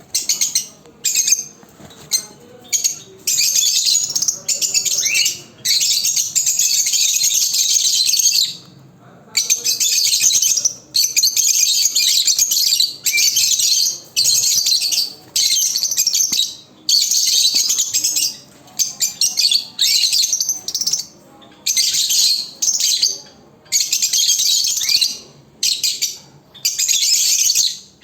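Pet lovebirds chattering and calling loudly, in stretches of several seconds broken by short pauses.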